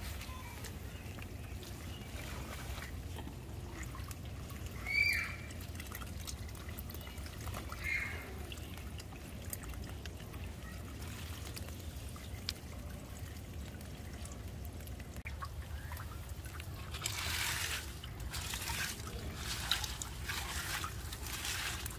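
Water trickling and pouring into a small yard drain through a green plastic raised atrium dome drain cover. A couple of short bird chirps come about five and eight seconds in, and the noise swells for a few seconds near the end.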